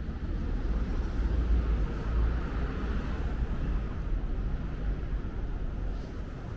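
City street noise with a vehicle passing, its engine and tyre sound swelling about a second in, peaking around two to three seconds, then fading over a steady low rumble.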